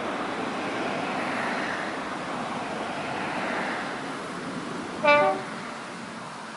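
Class 50 diesel locomotive giving a short two-tone horn blast, a high note dropping to a low note, about five seconds in, over a steady noisy background.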